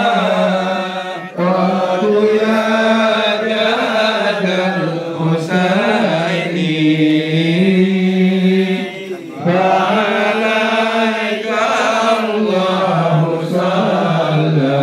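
Male chanting in long, slowly gliding melodic lines on a low voice, with brief pauses for breath about a second in and about nine and a half seconds in.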